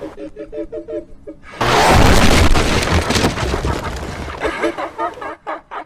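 Cartoon sound effects: a short run of quick pitched notes, then about a second and a half in a loud rumbling noise like an explosion or crash that lasts about two seconds, followed by more quick pitched notes near the end.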